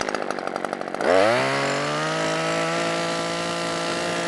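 Two-stroke gas chainsaw idling with a quick pulsing beat, then opened up to full throttle about a second in, the pitch climbing fast and then holding steady at high revs, as for the first of three cuts on a branch.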